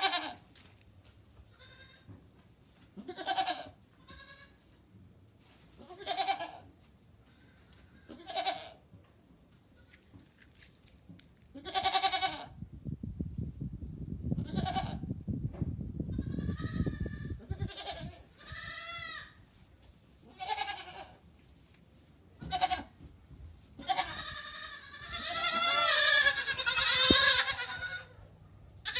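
Goat bleating: short separate bleats every two to three seconds, then a longer, louder run of overlapping bleats near the end. A low rough noise sits under the calls in the middle.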